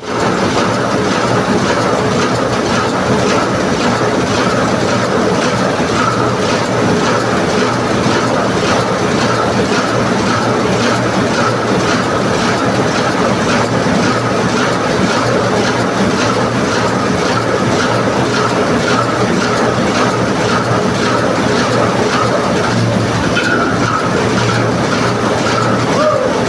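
Heavy machinery running steadily, such as a ship's engine room, with a regular clatter of about two to three knocks a second over a constant hum.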